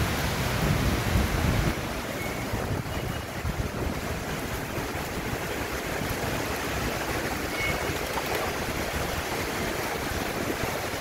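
Heavy rain falling, a steady dense hiss. There is an extra low rumble during the first second or two.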